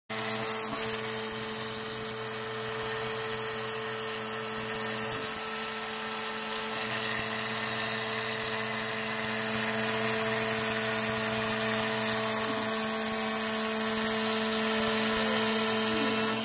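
Kress router spindle on a Stepcraft-2/840 desktop CNC running steadily, its Amana 1/8-inch end mill cutting a profile in acrylic sheet: a constant high-speed whine with the hiss of the cut, a little louder about two thirds of the way through.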